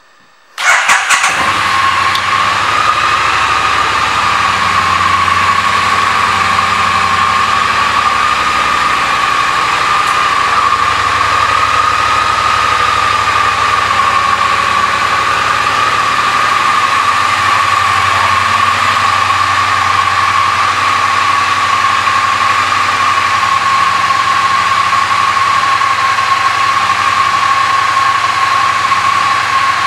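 2018 Triumph Street Twin's 900 cc parallel-twin engine, fitted with Vance & Hines exhaust pipes, starts about half a second in and then idles steadily.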